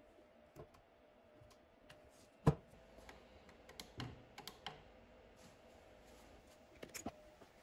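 Scattered small clicks and taps from handling a small LED puck lamp and pressing it onto the front of a wooden chest, with one sharper click about two and a half seconds in.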